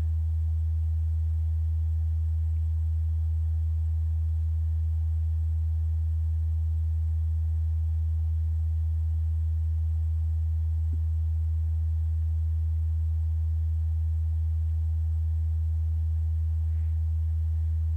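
Steady low hum, a single constant low tone with no change in pitch or level, with nothing else audible over it.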